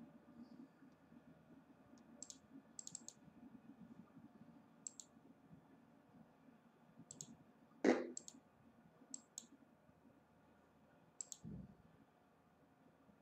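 Scattered faint clicks, some singly and some in quick pairs, with one louder knock about eight seconds in and a dull thump near the end.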